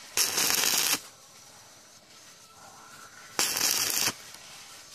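Stick (arc) welding electrode striking an arc on a rusty steel sprocket: two short bursts of crackling sizzle, each under a second, about three seconds apart.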